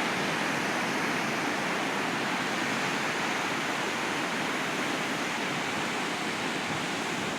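Ocean surf washing onto the beach, heard as a steady rushing hiss with no single wave break standing out.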